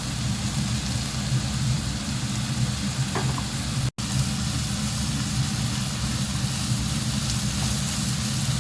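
Sautéed vegetables sizzling in a hot pan with soy sauce, chili sauce and vinegar in it, over a steady low hum. The sound cuts out for an instant about four seconds in.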